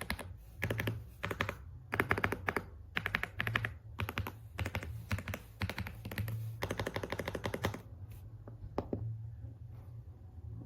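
Typing on an EPOMAKER x Aula F75 gasket-mounted 75% mechanical keyboard: quick runs of keystrokes separated by short pauses, thinning to a few single key presses near the end. A steady low hum sits underneath.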